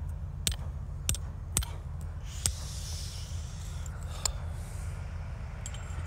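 Sharp clicks or taps, about two a second at first and then fewer, over a steady low rumble, with a soft hiss about halfway through.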